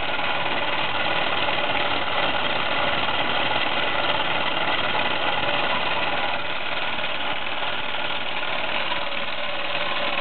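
Meccano MEC1 toy steam engine, made by Mamod, running steadily on live steam while driving its twin output shafts through gearing: a continuous even mechanical chatter with steam hissing from the exhaust.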